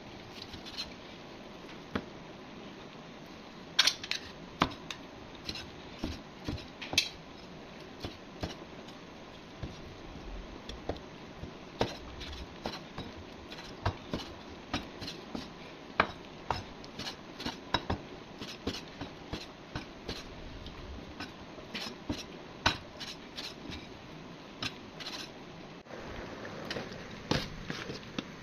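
A steel cleaver chopping cooked pork belly on a wooden chopping board: irregular sharp knocks of the blade through the meat onto the wood, about one or two a second.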